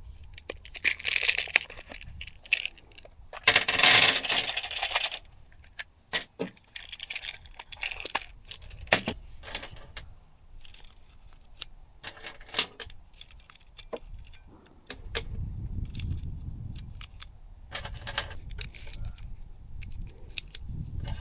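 Metallic clicks, rattles and clatter from handling a .22 LR MP5-style rifle, with no shot fired. There is a louder rustling burst about four seconds in, and a low rumble in the last several seconds.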